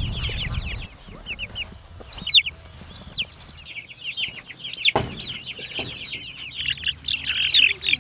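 A flock of baby chicks peeping: many short, high cheeps that fall in pitch, thick at first, thinning out through the middle, then crowding together again near the end. A low rumble in the first second and a single knock about five seconds in.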